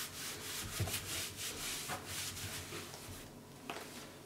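Damp non-scratch sponge rubbing back and forth over a painted cabinet door, a quick run of scrubbing strokes that stops about three seconds in, followed by a couple of faint clicks.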